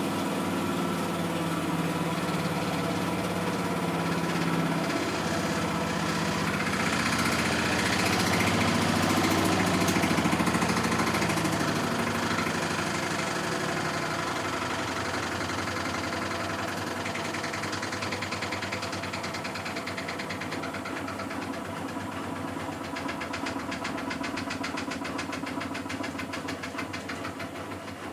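Miele Softtronic W6544 washing machine running, a steady hum with fast, even rattling. It grows louder about a third of the way in, then gradually quietens toward the end.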